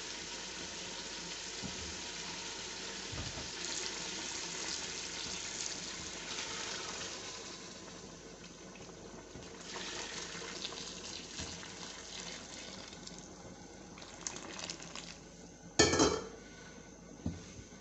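Boiling water poured into a hot aluminium pot of fried masala and mutton trotters, a steady pouring hiss mixed with sizzling that is strongest for the first several seconds and then fades. A sharp knock sounds near the end.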